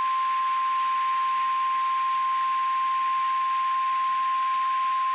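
NOAA Weather Radio 1050 Hz warning alarm tone: one steady, unbroken beep over a steady hiss. It is the signal that a warning message is about to be broadcast.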